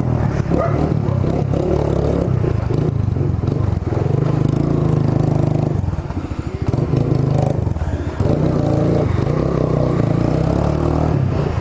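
Suzuki GSR 150's single-cylinder four-stroke engine running through an aftermarket Roncar SS Oval exhaust while riding. The note drops back briefly just past the middle, then picks up again.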